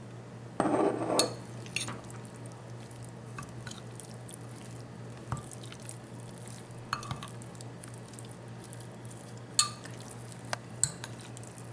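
Fish and spices being gently mixed in a bowl: a louder noisy burst about a second in, then scattered light clicks and knocks against the bowl, over a steady low hum.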